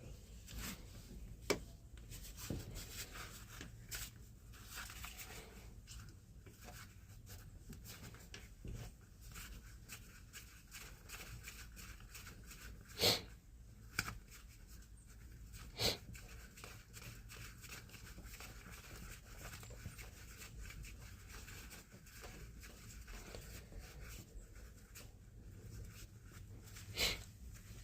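Quiet, intermittent hand work on metal parts: faint clicks, scrapes and rustles of Allen bolts and hand tools being handled, with three sharper, louder clicks spread through.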